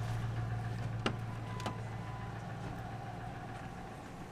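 Pickup truck engine idling with a steady low hum. Two sharp clicks come about a second in and half a second later.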